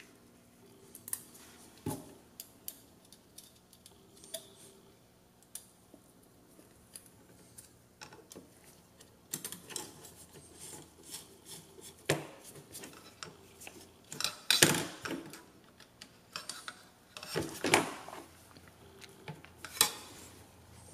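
Small metal parts clicking and clinking as frame plates, a standoff and M3 aluminium screws are handled and fitted by hand. Irregular clicks, sparse at first and louder and more frequent in the second half.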